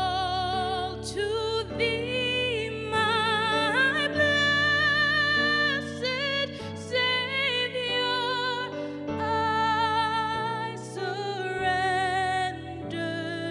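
A woman singing solo, holding long notes with vibrato, accompanied by chords on a Korg electric keyboard.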